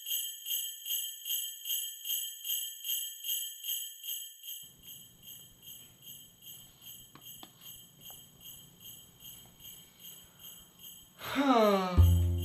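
Sleigh bells shaken in a steady rhythm, about three shakes a second, loud at first and then fading away gradually. Near the end a sound glides down in pitch and music with a heavy bass note begins.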